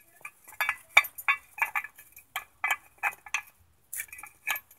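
A dozen or so light metallic clinks at an irregular pace, a few a second: a rear disc brake caliper and its hardware knocking against the steel mounting bracket and rotor as they are handled and fitted by hand.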